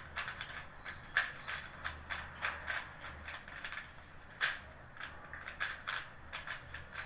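MoYu RS3M 2020 magnetic 3x3 speedcube being turned quickly during a solve: an irregular run of sharp plastic clicks, several a second, as the layers are turned.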